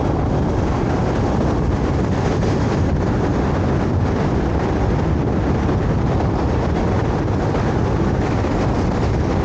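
A scooter riding along: steady wind rumble on the microphone mixed with the scooter's engine and road noise, no horn or other distinct event standing out.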